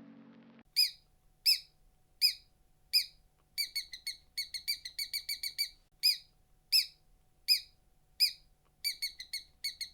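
Mouse squeaking: short, high-pitched squeaks, some single and spaced under a second apart, others in quick runs of four or five.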